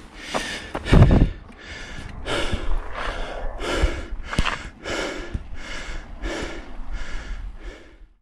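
A cyclist's heavy, rapid breathing after a hard ride, about two breaths a second, with a low thump about a second in. It fades out near the end.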